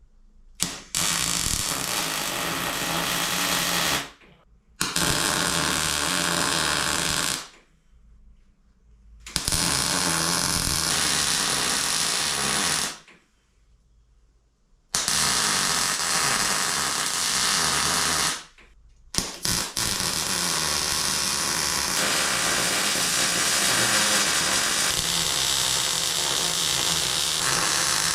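Electric welder arcing in five bursts of a few seconds each, with short pauses between: a crackling hiss as pieces of a steel shelf frame are tacked together.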